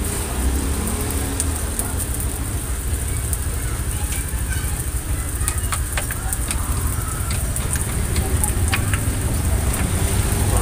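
Takoyaki batter sizzling in cast-iron takoyaki pans over gas burners, with scattered light ticks of bamboo skewers against the iron as the balls are turned. A steady low rumble runs underneath.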